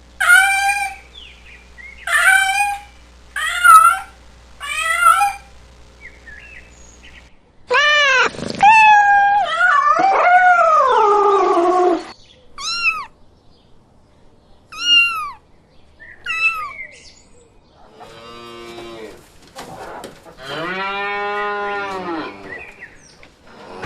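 A string of recorded animal calls of several kinds, one kind after another: four short falling calls, then long drawn-out calls, then three short high calls, and lower, longer calls near the end.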